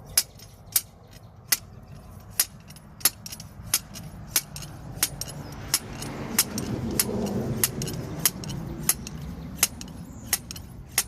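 Metal-on-metal clinks of a hand driver striking a stainless steel ground rod as it is driven into the ground: sharp, slightly ringing strikes at a regular pace of about three every two seconds.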